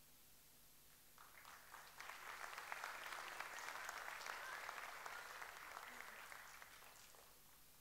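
Faint audience applause that starts about a second in, builds to a steady clapping and dies away near the end.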